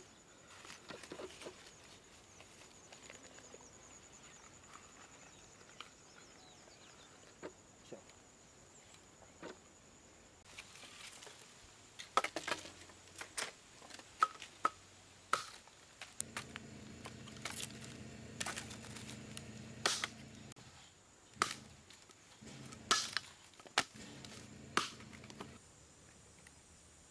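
A heavy blade chopping into a dry log: about a dozen sharp, separate strikes, roughly one a second. A low steady hum runs under the later strikes, and before them there is only faint rustling with a few light clicks.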